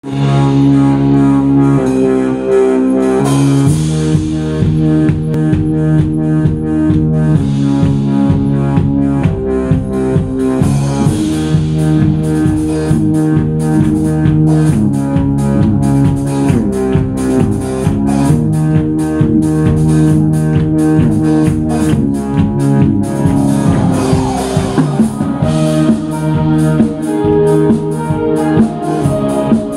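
Live rock band playing an instrumental passage: electric guitars and keyboard over a steady drum kit beat.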